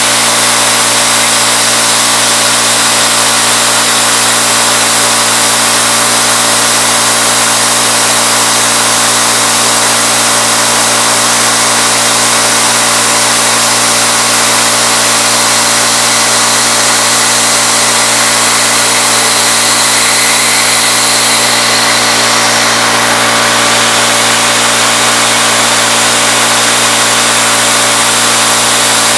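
CNC-retrofitted Bridgeport knee mill's spindle running at 2200 RPM while a 3/8-inch end mill cuts aluminum: a loud, steady machine whine with a dense hiss over it.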